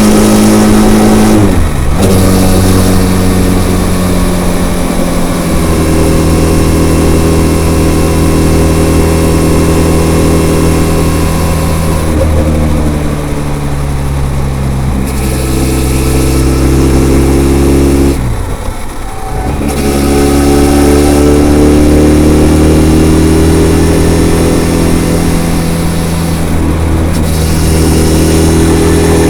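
Benelli TRK 502's parallel-twin engine running through its stock exhaust while the bike is ridden, the note holding steady and changing with throttle. Twice the note drops and climbs back, briefly about two seconds in and more deeply a little past the middle.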